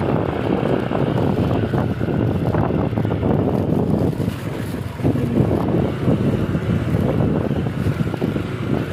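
Wind rumbling on the microphone of a moving motorcycle, with the bike's engine running steadily underneath as it rides over a rough stone road.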